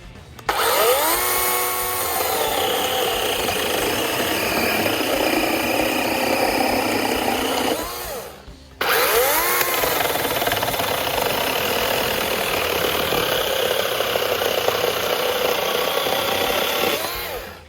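DeWalt 20V max cordless chainsaw, modded with an 18-inch bar and chain, run twice. Each time the motor spins up with a rising whine, then runs steadily with a hiss of chain on wood, cutting through a 4x6 timber, and winds down near the middle and again near the end.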